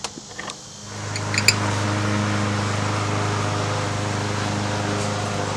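A few clicks, then about a second in a motor starts and runs with a steady low hum.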